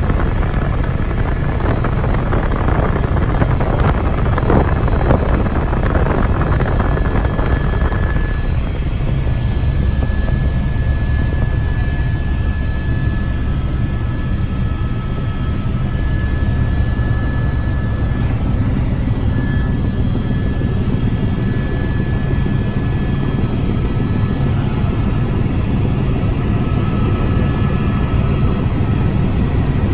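Helicopter cabin noise in flight: a steady, loud low drone of the rotor and engine, with a thin high whine running through it. A louder rushing noise over the first eight seconds or so then eases off.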